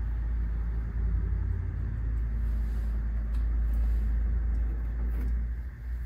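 A low, steady rumble that eases off near the end.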